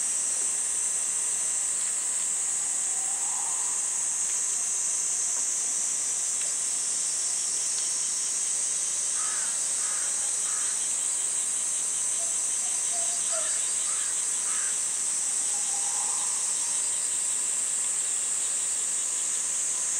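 Steady, high, unbroken drone of a summer cicada chorus. A few short chirps come through around the middle.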